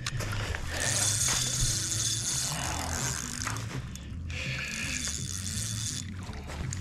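Fishing reel giving a continuous ratcheting click.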